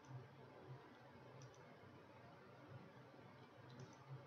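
Near silence with a few faint computer mouse clicks: one near the start, one about a second and a half in, and a quick pair near the end.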